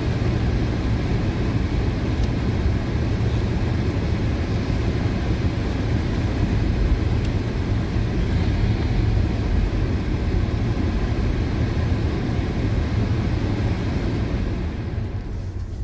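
Car cabin noise: a steady low rumble of the engine and tyres as the car drives slowly, easing slightly near the end.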